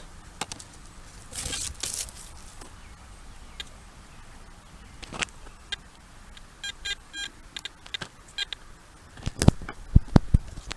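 A metal detector beeping on a target: a run of short, evenly spaced electronic beeps. Near the end come a few sharp, loud knocks.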